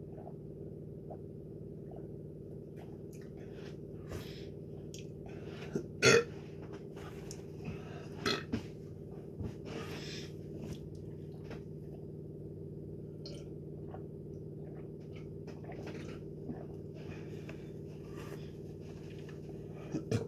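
A man burping a few times after drinking, the loudest burp about six seconds in, with handling and rustling noises between. A steady low hum runs underneath.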